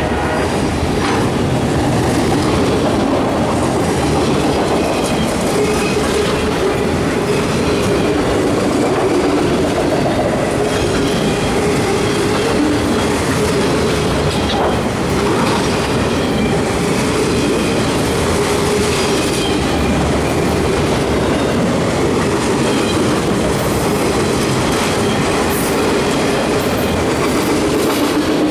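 Autorack freight cars of a CSX freight train rolling steadily past at close range: continuous wheel-on-rail rumble with occasional clicks of wheels over rail joints and a faint steady whine.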